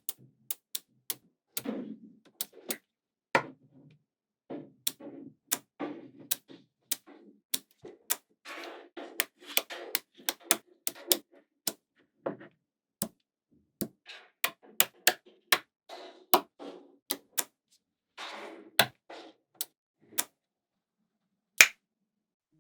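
Small magnetic balls snapping together one after another: many sharp, irregularly spaced clicks, with short soft rattles between them.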